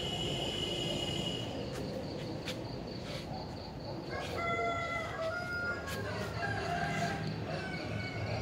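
A rooster crowing, with a call starting about four seconds in and another near the end, over steady low background noise.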